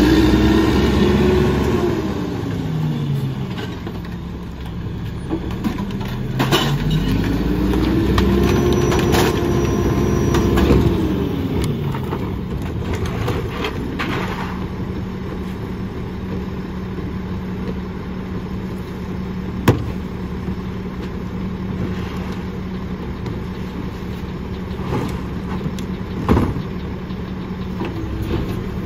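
Mack LE rear-loader garbage truck's diesel engine revving down, then up again and held high for several seconds before dropping back to a steady idle about halfway through. A few sharp knocks and bangs come from trash carts being emptied into the rear hopper, the loudest near the end.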